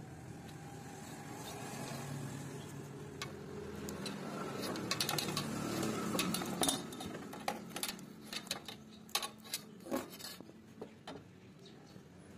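Old tape wrapping being unwound and peeled off a knife handle, crinkling, with a run of sharp irregular crackles and clicks in the middle as it pulls away.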